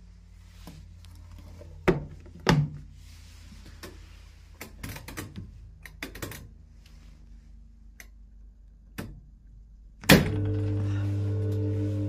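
Wyss Mirella Universal 2000 washing machine being set and started: two sharp knocks about two seconds in, a run of clicks from its mechanical programme dial being turned, then a loud clunk about ten seconds in as the machine switches on, followed by a steady electrical hum.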